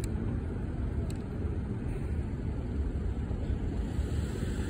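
Steady low rumble of city street traffic, cars passing on the road.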